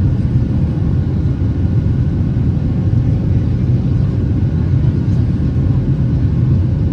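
Boeing 737-800's cabin in flight: a steady low rumble of its CFM56-7B jet engines and airflow, with a faint steady hum above it.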